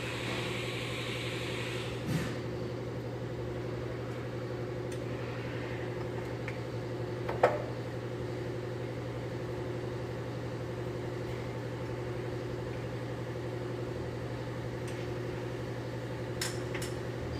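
A steady background hum, over which a few light metallic clicks and taps sound as the two screws holding the steel safety chuck's top insert are worked out; the sharpest click comes about seven seconds in.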